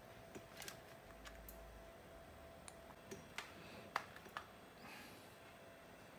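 About a dozen small, irregular clicks and taps of hard plastic parts being handled, faint over quiet room tone.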